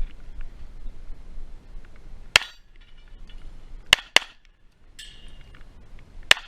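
Four pistol shots from a 9 mm Glock 45: a single shot, then a quick pair about a quarter second apart, then a last shot about two seconds later.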